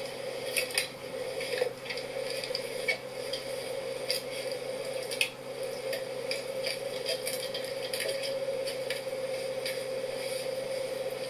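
Food being handled in a kitchen: irregular small clicks and soft squishy handling noises over a steady hum.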